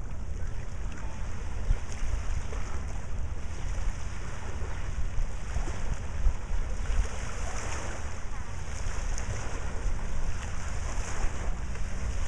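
Wind buffeting the microphone as a steady low rumble, over water lapping against shoreline rocks.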